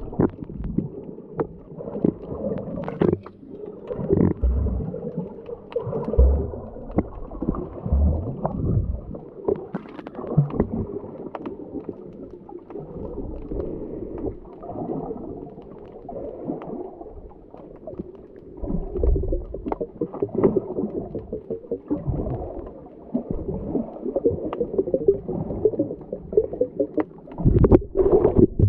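Underwater sound from a camera in the sea: muffled gurgling and bubbling water with irregular knocks and bumps.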